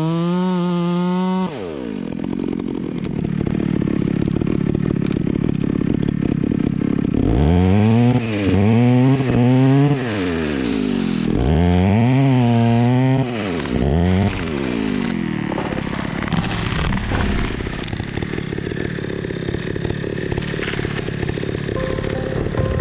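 Chainsaw revving high and cutting into the trunk. The engine note rises and falls through two long swells in the middle, then settles into rough cutting noise.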